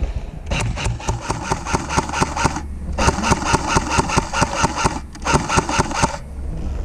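Airsoft electric rifle (AEG) firing, heard as three long runs of rapid, evenly spaced shots with gearbox clatter, broken by short pauses.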